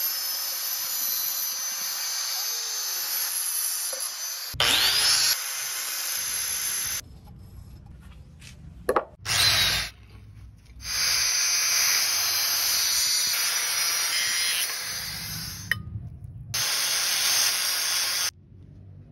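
Angle grinder with a thin cutting disc grinding through glass bottles, a steady high-pitched grinding hiss. It stops about seven seconds in, with a few knocks in the quieter gap, then starts again about eleven seconds in and cuts off near the end.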